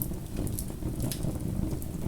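Bonfire burning: a steady low rumble of flames with irregular sharp crackles and pops from the burning wood, a few each second.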